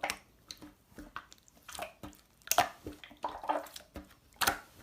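Slime being squeezed and pressed by hand, making irregular wet, sticky pops and clicks, the loudest about two and a half and four and a half seconds in.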